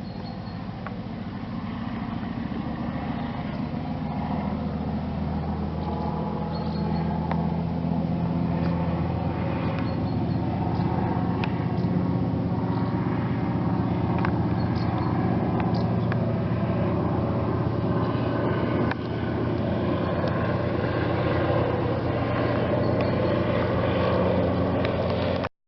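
Antonov An-2's Shvetsov ASh-62 nine-cylinder radial engine running with a low, steady drone. It grows louder over the first several seconds, then cuts off abruptly near the end.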